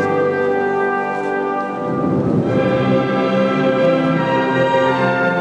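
Orchestral music with brass playing long held chords, moving to a new chord about two seconds in.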